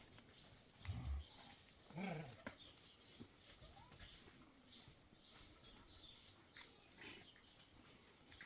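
Quiet outdoor animal sounds: a few faint, brief high bird chirps, a low thump about a second in and a short low animal call about two seconds in.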